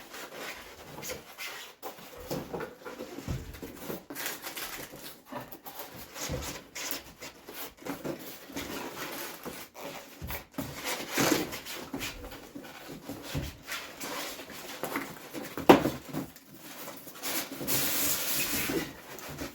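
Cardboard box and packing rubbing and scraping as an electric grill-and-hotpot appliance is worked out of its box, in irregular bursts. There is one sharp bump about three-quarters of the way through, and steadier sliding near the end.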